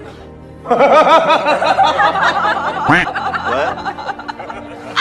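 A person giggling: a run of quick, high-pitched laughs starting about a second in and trailing off near the end.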